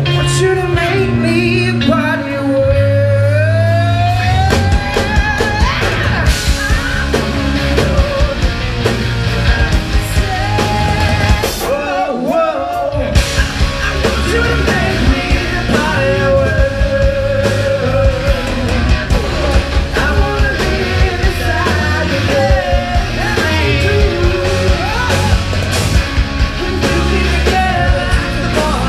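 Live blues-rock band playing loudly through the PA: electric bass, drum kit and guitar under a bending sung line. The bass and drums drop out briefly about twelve seconds in, then come back.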